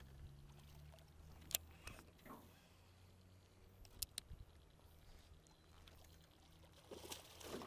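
Near silence with a faint low hum, broken by a few short sharp clicks: one about a second and a half in, then two close together about four seconds in.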